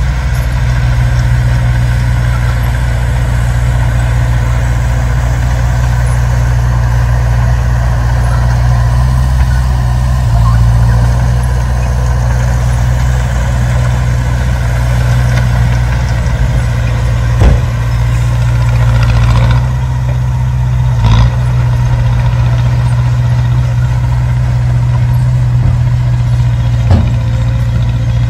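Heavy diesel engine of earthmoving machinery running steadily at low revs, with three short knocks, the first about two-thirds of the way in.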